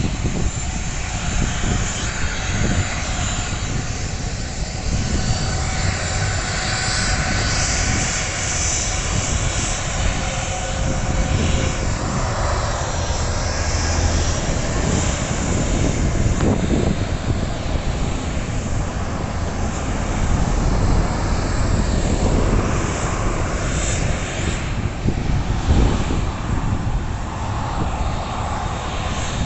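Jet engines of a Gol Boeing 737 airliner running at taxi power as it rolls along the ground: a steady rushing noise with a thin whine over it.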